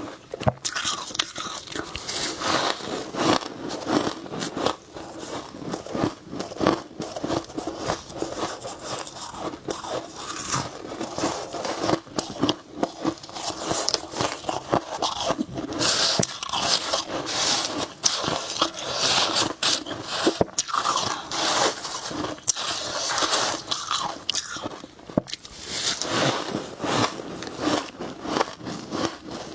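Close-miked biting and chewing of frost: a continuous run of crisp, irregular crunches.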